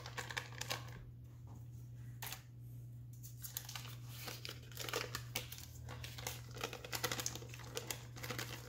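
Paper wrapper of a butter stick crinkling and being peeled back in irregular crackles as the butter is pushed into a stainless steel mixing bowl.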